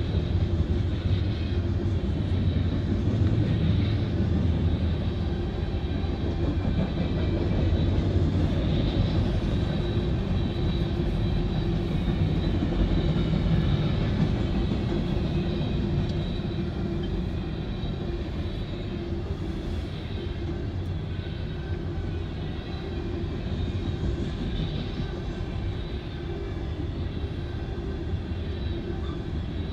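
Freight train's covered hoppers and tank cars rolling past: a steady rumble of steel wheels on the rails, easing slightly about halfway through.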